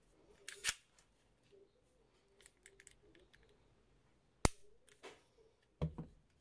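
Sharp mechanical clicks from an Archon Firearms Type B gas-blowback airsoft pistol as its parts are worked by hand, the loudest twice, with fainter ticks between. Near the end come two dull knocks as the pistol is set down on its box.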